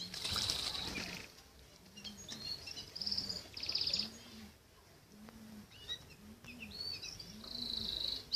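Birds chirping and twittering in quick high calls, with a short buzzy trill about a third of the way in and another near the end.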